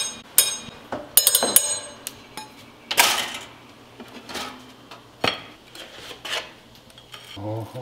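Kitchen counter clatter as toast is handled and plated: a quick run of sharp knocks with a metallic ring in the first second and a half, then scattered knocks of plate and utensils and a short scrape about three seconds in.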